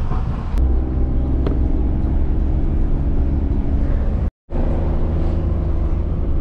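Car engine and road noise heard from inside the moving vehicle: a steady low rumble with an even engine hum. The sound cuts out completely for a moment about four seconds in.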